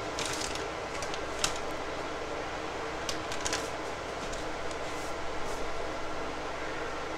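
A plastic snack-style pouch crinkling in the hand as shredded coconut is shaken out of it onto a salad, a handful of short crackles over a steady fan-like hum.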